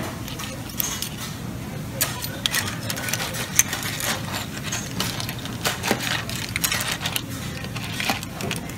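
Cockle clam shells clicking and clinking against a serving spoon and a stainless steam-table pan as they are scooped out of broth: a string of sharp, irregular clicks over a low, steady hum of room noise.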